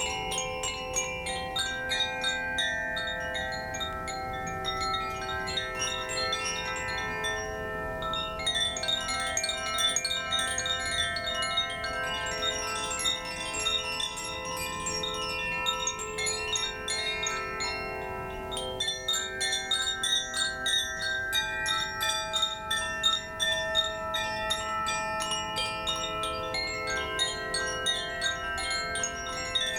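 Koshi chimes ringing, their clappers striking the tuned rods inside: many clear, overlapping tones that hang on. The strikes thicken into flurries of quick, bright hits about eight seconds in and again over the last third.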